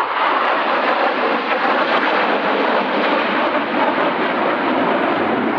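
Three Panavia Tornado GR4 jets passing in formation, the twin RB199 turbofans of each giving a loud, steady rush of jet noise.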